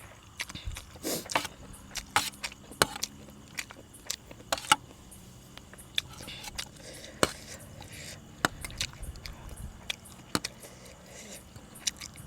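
Close-up eating sounds: irregular sharp clicks and crunches, a few to the second, from utensils clinking on the dish and chewing of spicy seafood salad.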